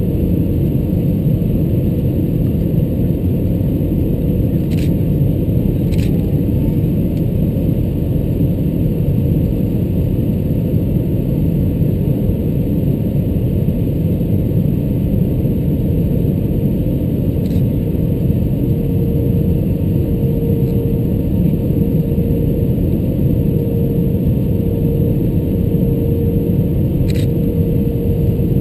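Steady low roar inside an Airbus A320-214's cabin over the wing on approach, made of its CFM56 engines and airflow. A faint steady hum joins in about two-thirds of the way through, and a few faint ticks are heard.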